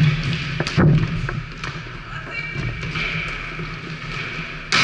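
Volleyball rally: sharp smacks of hands striking the ball, the loudest about a second in and another near the end, echoing in a large gym hall.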